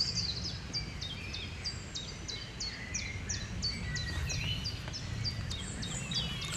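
A small bird calling over and over, short high notes that each slide down, about three a second, over a low rumble of wind.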